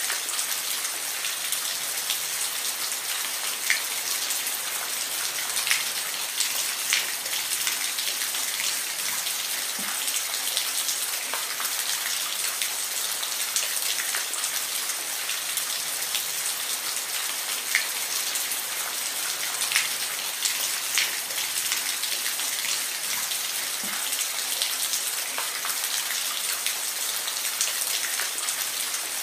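Steady rain falling, an even hiss with many individual raindrops ticking sharply on a hard surface.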